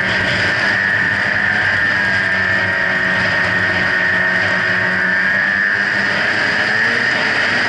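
Snowmobile engine running steadily while the sled is ridden at an even speed, with a constant high whine above the engine note.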